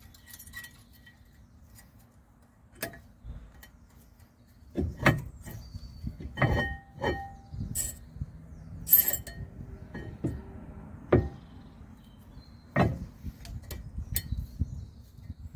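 Metal brake pad clips being fitted onto a front brake caliper bracket: scattered sharp clicks and clinks, some with a short ringing tone, spread over several seconds.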